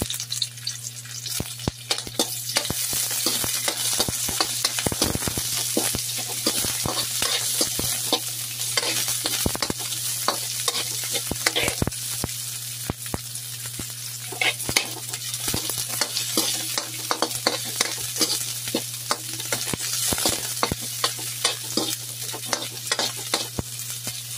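Chopped garlic and onion sizzling in hot oil in a wok, stirred with a metal spoon that clicks and scrapes against the pan again and again.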